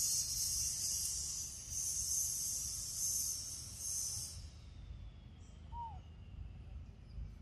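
A high insect drone, swelling and fading a few times, that cuts off suddenly about four seconds in. A single short chirp follows near the six-second mark, over a low rumble.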